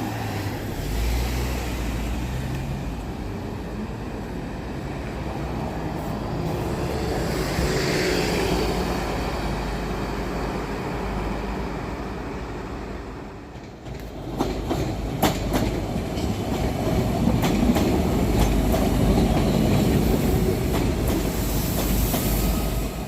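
Passenger train running on the rails with a steady rumble. From about halfway through, wheels click sharply over rail joints as the rumble grows louder again.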